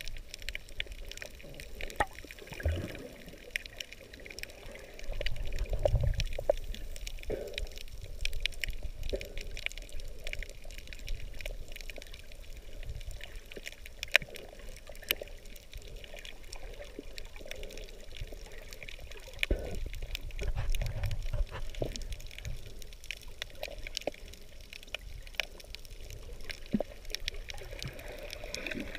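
Muffled underwater sound of water moving and bubbling around a submerged camera, with a scatter of faint clicks and crackles. Louder low rumbling swells about five seconds in and again about twenty seconds in.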